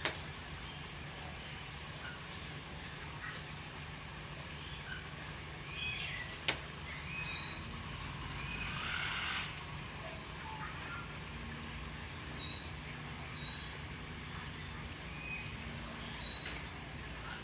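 Scattered short, high bird chirps and whistles, some gliding up or down in pitch, over a steady high hiss, with one sharp click about six and a half seconds in.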